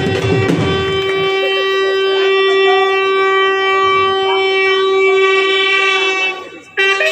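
A bugle sounding one long, steady held note for about five seconds, part of the ceremonial call played as the flag is lowered. It breaks off briefly near the end and then sounds again.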